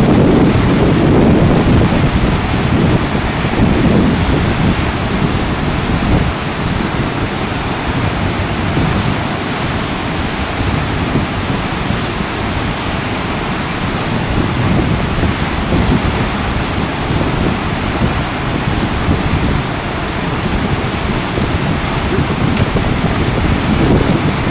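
Whitewater rapids rushing steadily over a breaking standing wave, with wind buffeting the microphone.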